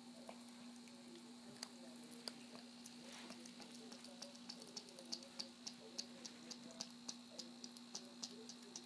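Small dog chewing a raw chicken neck, its teeth crunching through the bone in sharp little cracks that come several a second in the second half.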